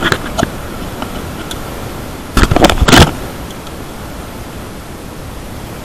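Mountain bike ridden along a concrete path, picked up by a body-worn camera as a steady rush of wind and riding noise. Loud clattering knocks come right at the start and again about two and a half seconds in, typical of the bike and camera jolting over bumps.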